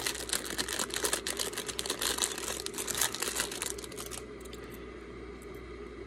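Clear plastic packaging bag crinkling as hands open it and handle it, stopping about four seconds in.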